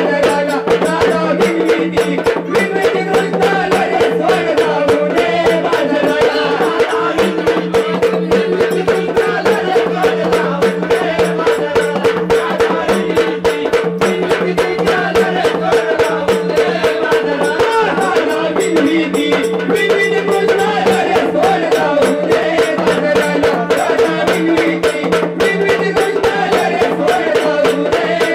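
Marathi Waghya folk music: a steady drone under a fast, even beat of drums and jingling rattles, with a wavering melody line above.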